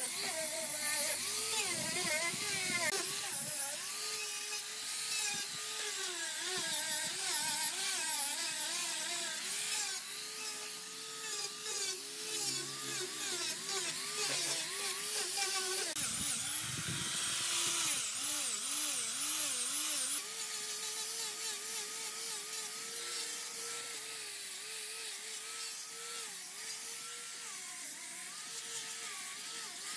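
A small power tool's motor running steadily, its pitch wavering up and down throughout.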